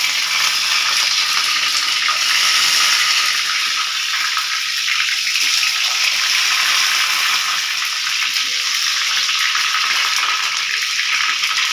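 Kebab patties shallow-frying in hot oil in a pan, giving a steady, loud sizzle.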